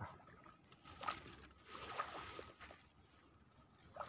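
Faint water sloshing and rustling at the edge of a weedy ditch, with a few soft knocks and a faint steady high tone.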